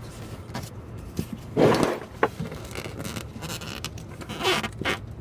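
Metal clicks and short rasping scrapes of a socket wrench being worked on the camshaft position sensor's bolt, with the longest rasp a little under two seconds in and two more near the end.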